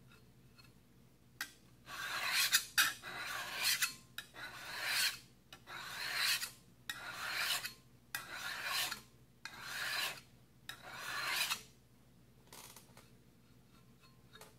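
Hand file rasping along the edge of a carbon-steel card scraper, about eight strokes a little over a second apart, then stopping about 12 s in. The filing squares the edge to a sharp 90-degree angle and takes off the burr.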